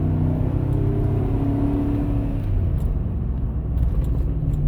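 2012 Chevrolet Tahoe on the move, with a steady low hum and rumble whose pitch drifts slightly. The owner attributes the humming to a worn front driver's-side wheel hub bearing.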